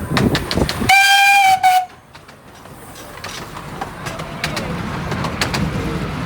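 Miniature railway locomotive sounding one short whistle blast of a little under a second, falling slightly in pitch as it ends. The train then rumbles on with the wheels clicking over the rail joints.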